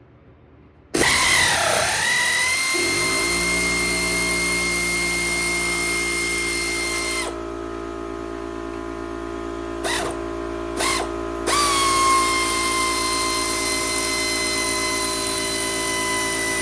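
Electric power tool running steadily, spinning out the brake caliper mounting bracket bolts. It starts about a second in with a brief dip in pitch as it takes the load, then holds an even whine. Its higher tones drop away for a few seconds in the middle before returning.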